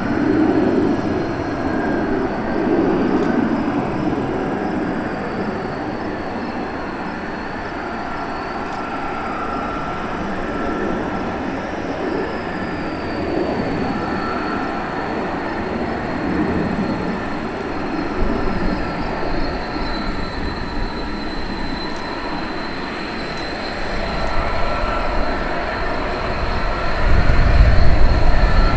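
T-38 Talon jet trainers' twin General Electric J85 afterburning turbojets running at takeoff power as the jets roll down the runway. A high turbine whine glides down in pitch as each jet passes. The noise swells with a deep rumble near the end as another T-38 rolls by close.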